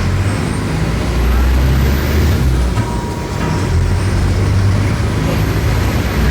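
Mercedes-Benz OM-904LA four-cylinder turbodiesel of an OF-1418 bus running under way. The engine note dips briefly about two and a half seconds in, then builds again, with a thin high whine rising over it twice.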